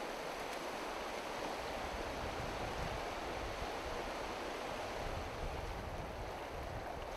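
Steady rush of a shallow river running over gravel and stones.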